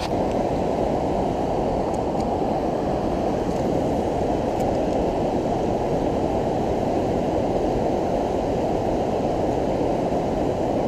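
Steady, muffled rush of river water tumbling over a rocky weir and rapids, an even dull roar with little treble.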